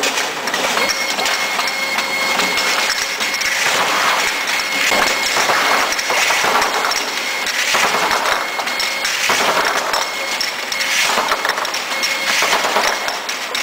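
Automatic labeling machine for cylindrical glass jars running steadily, with glass jars clinking against one another on the conveyor and a thin steady whine over the machine noise.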